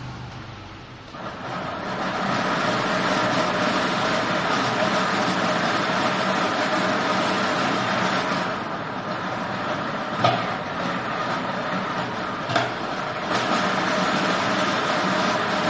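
IMY-380 lottery machine running: motor-driven arms stir a drum of plastic lottery balls, which rattle steadily against the clear drum. The noise starts about a second in and holds, with two sharper knocks about ten and twelve and a half seconds in.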